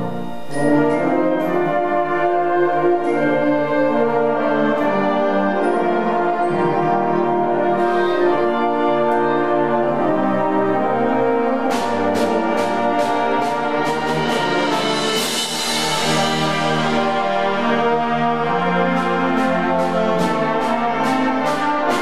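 Concert band playing slow, sustained brass and woodwind chords, with a run of sharp percussion strikes and a swelling wash in the second half.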